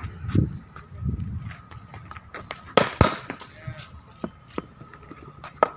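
Cricket bat striking the ball in net practice: a sharp crack about three seconds in, with fainter knocks later and indistinct voices in the background.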